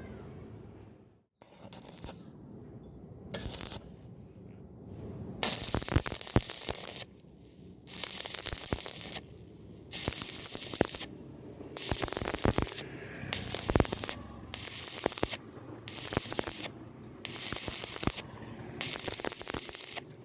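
Stick welding arc on thin square steel tubing, crackling and hissing in short bursts about a second long with brief breaks, as the arc is struck and broken again and again to lay the bead without burning through the thin wall.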